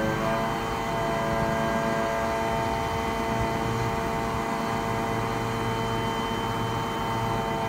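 Grab lorry's engine running to drive the hydraulics of its Atlas truck-mounted crane, a steady hum with a low rumble while the boom swings the grab.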